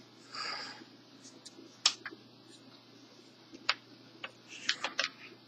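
Clicks and knocks of trolling-motor propellers being handled and set down: a brief rustle near the start, one sharp knock about two seconds in, then a run of lighter clicks near the end.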